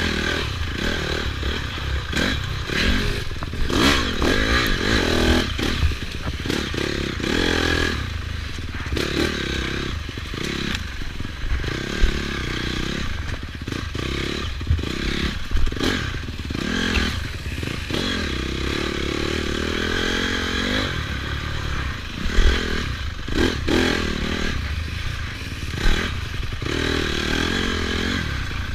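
Dirt bike engine heard from the bike itself, revving up and falling back again and again as the throttle opens and closes, with clattering and scraping from the machine over rough ground and a few sharp knocks.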